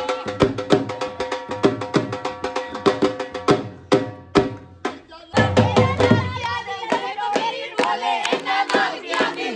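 Punjabi dhol drum beaten with sticks in a fast, steady rhythm of about four strokes a second, ringing strongly. It stops about four seconds in, and after a short gap a group of women sings loudly together with hand clapping.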